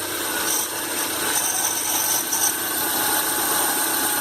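Renault Duster's 1.6 16-valve K4M engine idling just after starting, with a steady rasping, rubbing noise mixed in. It is being run to check the noise the owner complains of in the accessory belt area.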